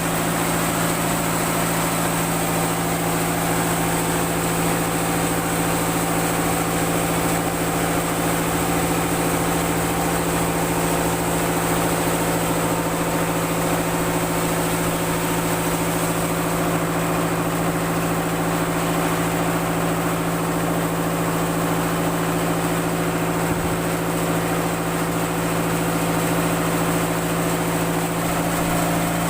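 Sawmill machinery running steadily: an engine-like drone holding one pitch with a constant noisy hiss over it.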